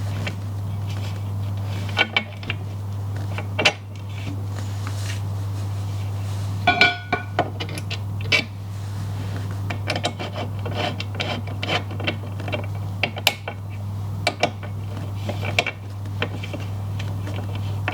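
Metal parts of a roof rack clicking and clinking as the side-profile bars, joiner plates, nylock nut and bolt are handled and lined up, with a louder metallic clank and brief ring about seven seconds in. A steady low hum runs underneath.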